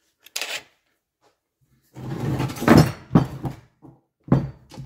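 Clatter and knocks of metal engine parts and tools being handled on a workbench: a short rustle soon after the start, a longer stretch of rattling and knocking in the middle, and a few sharp knocks near the end.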